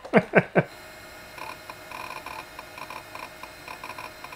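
A few quick clacks of computer keys, then irregular ticking and chirping, several short bursts a second, from a PC hard drive seeking and writing as files are copied across a LapLink parallel-port connection.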